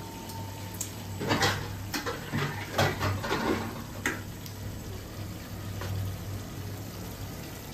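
Silicone spatula stirring and scraping thick gravy around fish pieces in a nonstick pan, with a few short clicks against the pan. The stirring is busiest between about one and four seconds in, over a steady low hum.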